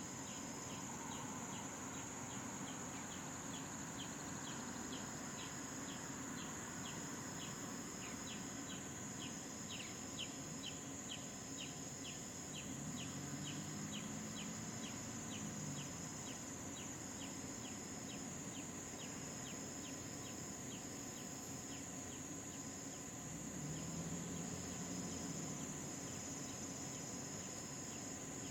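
An outdoor insect chorus of crickets and other insects: a steady high-pitched trill, a lower buzz pulsing on and off, and regular clicking chirps about three a second. About halfway through, and again near the end, a brief low sound swells and fades.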